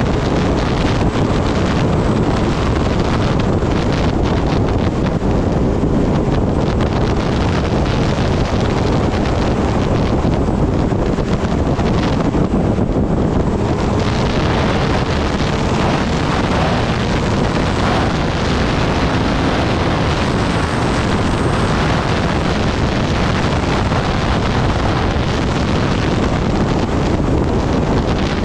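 Heavy wind noise buffeting the microphone, a loud steady rush, with a motorcycle engine running underneath it, typical of riding at speed on a Kawasaki Ninja ZX-10R.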